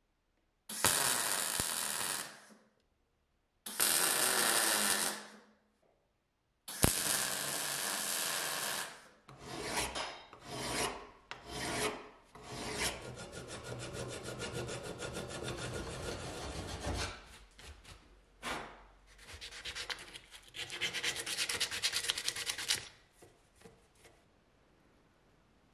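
MIG welder running in three short bursts of a few seconds each, then a hand file rasping over a metal part clamped in a vise in repeated back-and-forth strokes that stop near the end.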